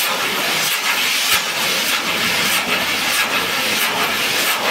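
A tower of firework fountains burning with a steady, dense hiss, spraying sparks, with scattered sharp pops and crackles through it.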